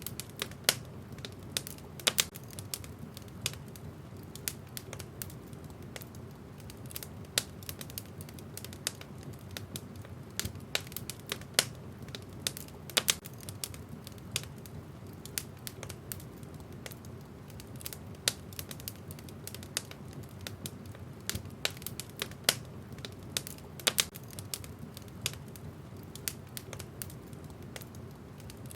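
Wood fire in a fireplace crackling: irregular sharp pops and snaps of burning logs over a steady low rumble.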